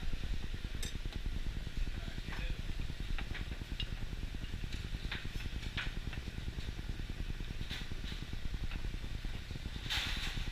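Steady low rumble of commercial kitchen equipment, under scattered light taps and rustles as carrot strips and green beans are handled on a plate, with a brief louder rustle near the end.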